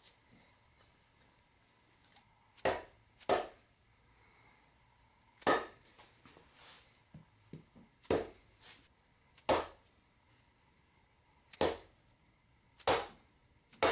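Dead-blow hammer striking a Subaru EJ22T's aluminium crankcase, about seven dull blows at irregular intervals of one to two seconds, tapping the freshly sealed case halves together.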